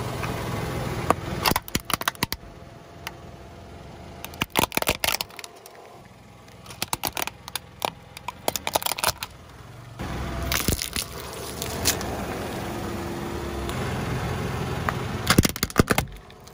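Plastic toy car cracking and snapping as a car tyre rolls over it on asphalt, in several clusters of sharp cracks, over the low, steady running of the car's engine.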